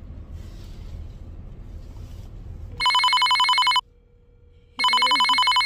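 Smartphone on speaker playing the ringing signal of an outgoing call: two buzzy rings, each about a second long with a second's gap, starting about three seconds in. Before the rings, a low steady car-cabin rumble.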